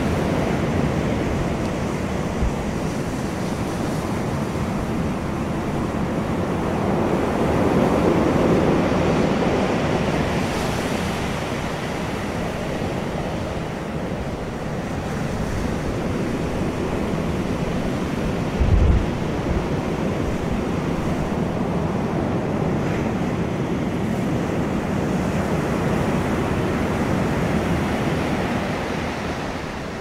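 Waves breaking and washing on a pebble beach, a steady rushing surf that swells about a quarter of the way in. A brief low thump comes about two-thirds through.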